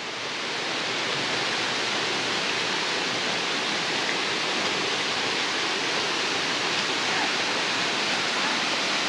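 Waterfall rushing over rocks: a steady roar of falling water that grows a little louder over the first second or so, then holds.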